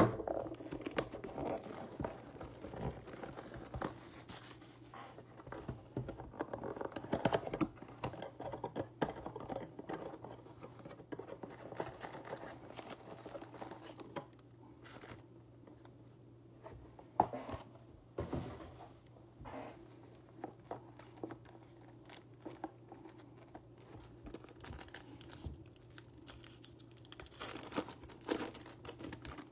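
Cardboard trading-card blaster box being opened by hand: scattered scrapes and clicks of the flaps and packs being handled. Near the end, a foil card pack is torn open and crinkles.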